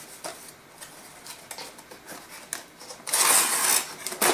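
Cardboard packaging being handled: light rustles and taps, then a loud scraping slide as the cardboard tray is pulled out of its box about three seconds in, and a sharp knock near the end.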